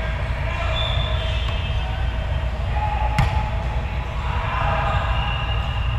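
A volleyball struck once with a sharp smack about three seconds in, over the steady din and low rumble of a large sports hall with several courts in play.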